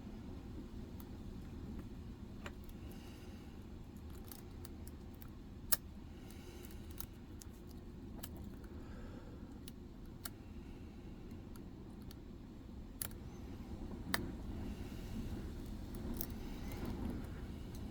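Lock pick and tension tool working the pins of a Medeco six-pin cylinder: irregular small metallic clicks and faint scraping, with one sharper click about six seconds in, over a steady low background rumble.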